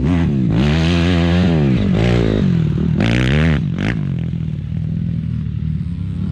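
Dirt bike engine revving, its pitch rising and falling several times as the throttle opens and closes, then settling to a lower, steadier note about four seconds in.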